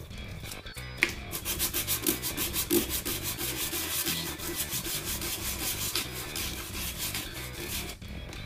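100-grit sandpaper rubbed by hand over a pepakura paper-model helmet in quick back-and-forth strokes, several a second, smoothing the surface after the coarse 60-grit pass.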